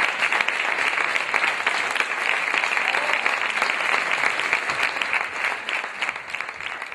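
Audience applauding at a curtain call, a dense patter of many hands clapping that dies away near the end.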